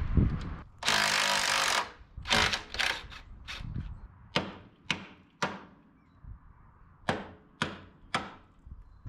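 A second-long scraping, rattling burst about a second in, then nine sharp hammer blows on the steel front suspension of a bare car chassis, in three quick groups of three.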